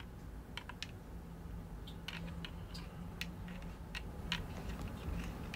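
Scattered light clicks and taps, irregular and a fraction of a second apart, from handling, over a faint steady low hum.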